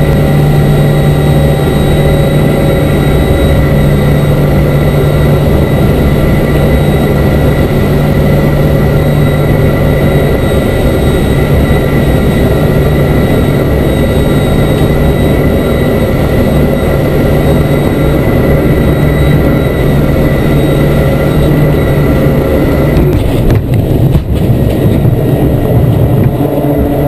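Aircraft engines heard from inside the cockpit during a carrier landing: a loud, steady drone with a high whine. About 23 seconds in the sound jolts and shifts as the aircraft touches down on the deck.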